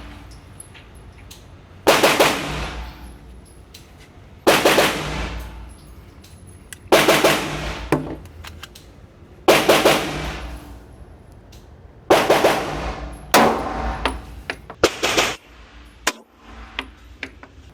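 Glock 19 9mm pistol fired seven times in slow, deliberate single shots, about one every two and a half seconds and a little quicker near the end, each shot echoing in an indoor range.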